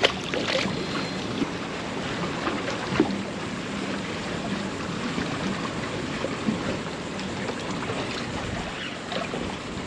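Water sloshing and lapping against an aluminium jon boat's hull, with wind on the microphone and a splash in the water right at the start.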